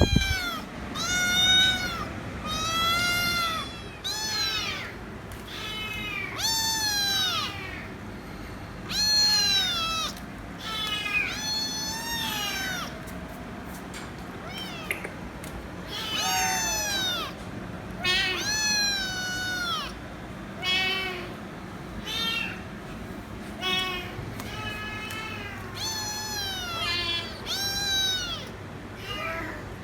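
Kitten meowing loudly without stopping: a long run of high meows, nearly one a second, each rising and then falling in pitch. It is a kitten demanding attention.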